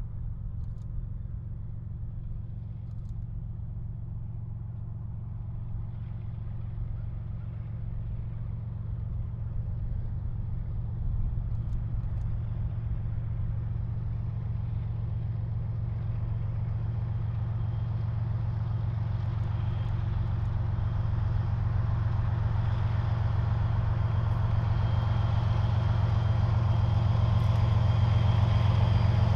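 Norfolk Southern diesel locomotive hauling an autorack freight train: the engine's steady low drone grows louder as the train approaches and passes, with more rail and wheel noise joining near the end.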